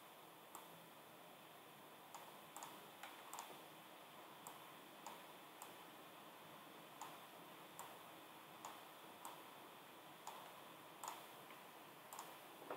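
Faint, irregular clicks of a computer mouse, roughly one every half second to second, over a low steady room hiss.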